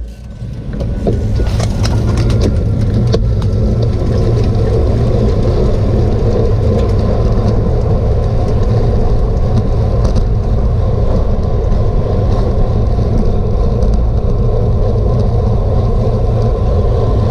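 Wind and road rush buffeting a bicycle-mounted GoPro's microphone while riding, a steady low rumble that builds over the first second and then holds, with a few light clicks in the first couple of seconds.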